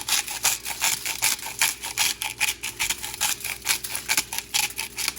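A spice shaker shaken quickly over a rack of pork ribs, a fast, even rattle of about five shakes a second.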